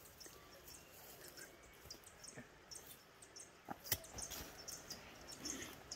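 Faint hillside ambience: many short, high-pitched chirps scattered throughout, with a sharp knock about four seconds in.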